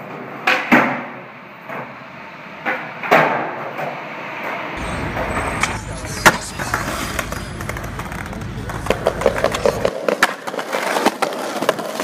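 Skateboard wheels rolling on concrete, with sharp clacks as the board pops and lands, several of them, and a run of quick clacks near the end. A low rumble runs through the middle stretch.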